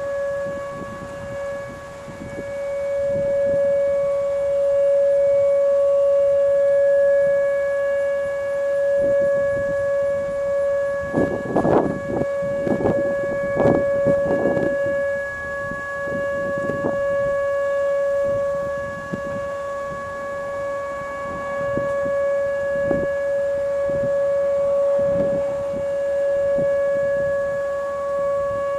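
Whelen nuclear-plant warning siren sounding its steady, single-pitched alert tone during a siren test, swelling and fading slightly in level. A cluster of low rumbling noises comes about halfway through.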